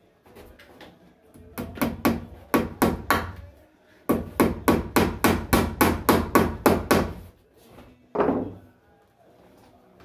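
Hammer blows into wood as wiring is fastened to wooden framing: a run of about six strikes, a short pause, then about a dozen quick strikes at roughly four a second, and one last knock near the end.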